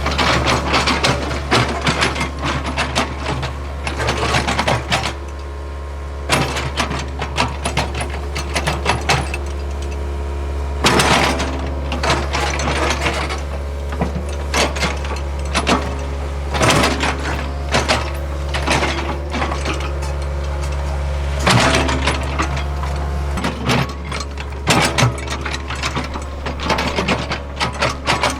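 Hitachi ZAXIS75UR excavator's diesel engine running with a steady low drone, under dense, irregular clattering and scraping of the machine working soil and stone, with louder bursts of clatter now and then.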